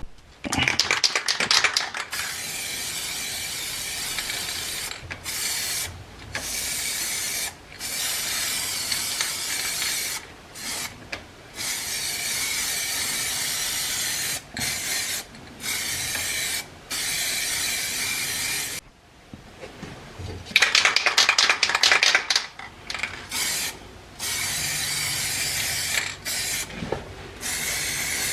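Aerosol spray can: shaken so its mixing ball rattles, then sprayed in repeated bursts of a few seconds with short pauses between them, shaken again about two-thirds of the way through.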